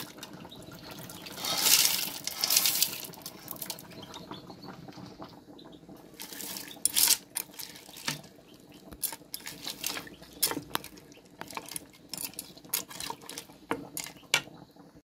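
Soaked white haricot beans poured with a splash into a metal pot of broth and sheep's feet, then a metal spoon stirring them, clinking and knocking against the side of the pot many times.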